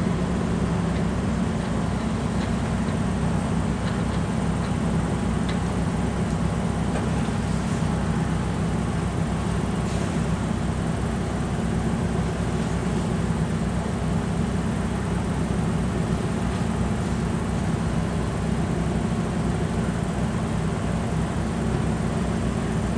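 Many car engines idling together in a queue, a steady, unchanging low sound.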